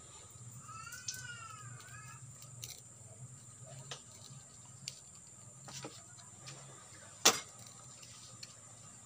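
Small knife whittling a green bamboo branch: scattered light cuts and clicks, with one sharp knock about seven seconds in. About a second in, a bird gives a quick run of rising-and-falling chirps.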